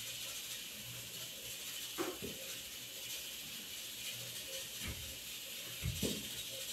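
Kitchen knife knocking on a wooden cutting board a few scattered times while dicing calabresa sausage, over a steady hiss.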